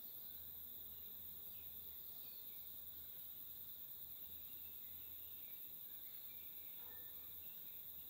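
A faint, steady insect chorus: a continuous high-pitched shrilling, with scattered faint chirps over it.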